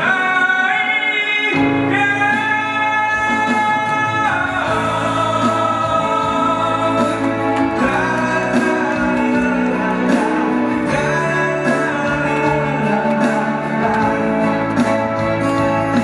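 A man singing a song into a microphone over keyboard accompaniment. He holds one long note through the first four seconds, then moves on through changing notes.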